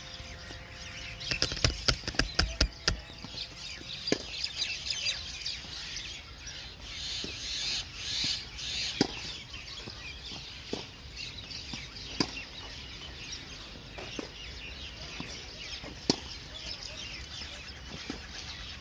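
Tennis balls struck by rackets, single sharp knocks about every two seconds, with a quick run of knocks near the start, over the steady high chatter of a large flock of birds.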